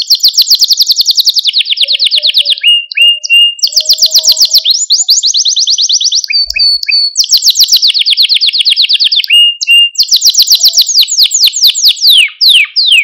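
Male domestic canary singing a long song: rolling trills of fast repeated high notes that shift pitch and pace from phrase to phrase. There is a brief pause about halfway through and a few quick falling slurs near the end.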